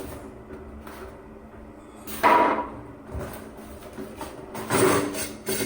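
Cardboard packaging of a water heater being opened and handled: two short knocking scrapes about two and a half seconds apart, over a faint steady hum.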